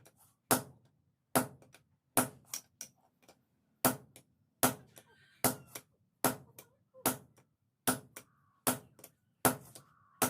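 Hand hammer forging steel on an anvil: heavy blows about every 0.8 seconds, each followed by one or two lighter rebound taps.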